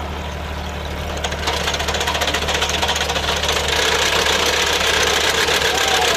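Tractor engine running, growing louder and noisier about a second and a half in and again near four seconds, while the three-point hitch raises the tractor-mounted multi-auger digging machine out of the soil.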